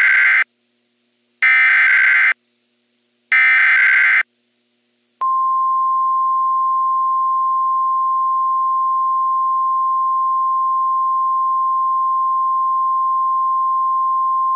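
Emergency Alert System SAME header: three screeching data bursts about two seconds apart, then about five seconds in the steady single-pitch 1050 Hz NOAA Weather Radio alert tone starts and holds. The tone signals that a warning-level alert is about to be read.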